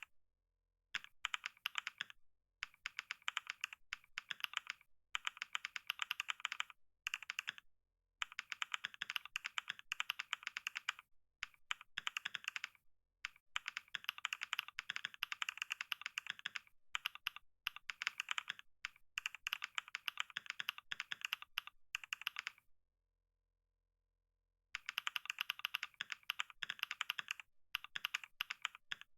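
Fast typing on a computer keyboard: rapid key clicks in runs of a few seconds, broken by short pauses and one longer pause of about two seconds near the end.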